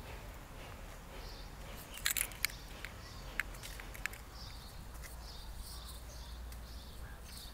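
Quiet outdoor ambience on a walk: a bird chirping repeatedly in short high notes, mostly in the second half, over a steady low rumble, with a cluster of sharp clicks about two seconds in and a few more shortly after.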